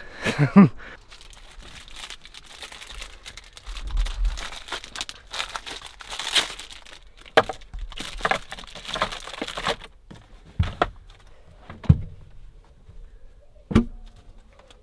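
Plastic food packets crinkling and rustling as someone rummages through a small fridge, followed by a few separate knocks near the end.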